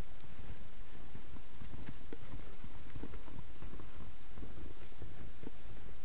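Elk walking through deep snow: irregular, soft hoof steps punching into the snow, over a steady hiss.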